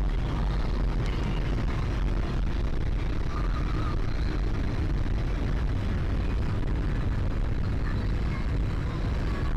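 Morris Oxford on the move, heard from inside the cabin: steady engine and road noise, mostly low-pitched, with no change in speed or pitch.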